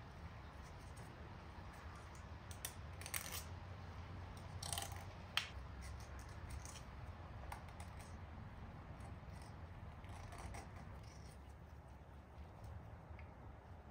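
Light scratching and small clicks as old gasket remnants are picked and scraped by hand off a corroded engine coolant flange. The clicks are scattered and come thickest between about three and six seconds in, over a faint steady low hum.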